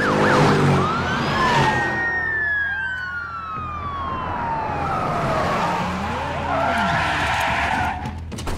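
Police cars speeding past on a highway with sirens wailing. The siren pitch sweeps up and down and drops in one long fall as a car goes by, over engine and tyre noise. Near the end, tyres skid as a patrol car brakes hard to a stop.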